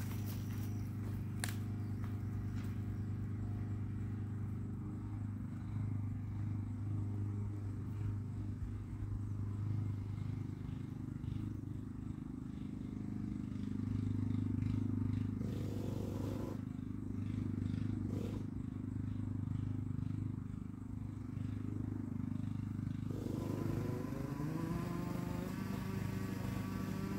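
Traxxas Nitro Slash's small nitro engine running steadily at low speed during break-in, a continuous buzzing hum. Near the end its pitch rises as it revs up.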